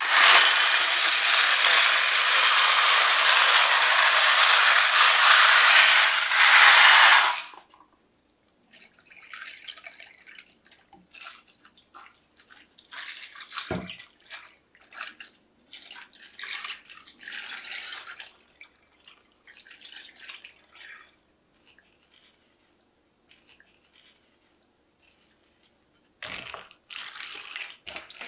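Dry elbow macaroni poured from a cardboard box into a ceramic baking dish: a loud, continuous rattle for about seven seconds. Then milk is poured in, with quieter splashing and trickling in uneven spurts and one soft knock. Near the end a wooden spoon scrapes and stirs in the dish.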